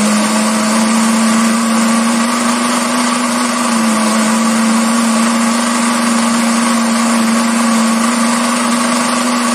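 Countertop blender running steadily, grinding dried chimichurri and lemon pepper into a fine powder, its motor holding one steady pitch.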